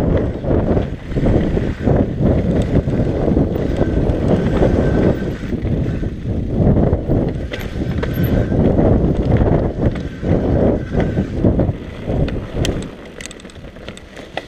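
Wind buffeting a GoPro microphone and mountain bike tyres rumbling over a rocky dirt trail during a fast descent, with scattered clicks and rattles from the bike. The rushing noise drops away sharply near the end.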